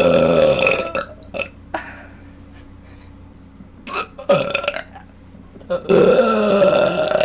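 A person burping loudly: one long, deep burp at the start, a shorter burp that falls in pitch about four seconds in, and another long, deep burp near the end.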